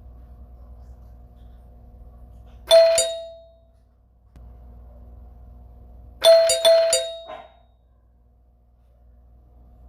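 Doorbell ringing twice: a two-note ding-dong about three seconds in, then a quicker run of four or five chimes a few seconds later, each note ringing out briefly. A faint steady hum lies underneath between the rings.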